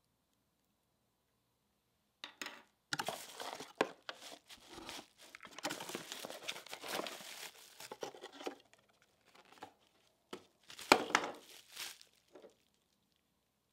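Bubble wrap and plastic packaging crinkling and rustling in irregular bursts as it is handled and pulled out of a cardboard box, starting about two seconds in. The loudest crinkle, with a sharp crackle, comes about eleven seconds in.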